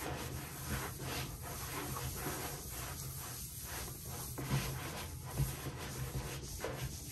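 Bowling ball being sanded by hand with a 500-grit Truecut abrasive pad: a continuous scratchy rubbing in irregular strokes.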